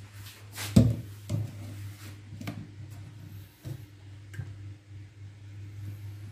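A few short knocks and clicks of a frying pan being handled on a gas stove, the loudest about a second in, over a steady low hum.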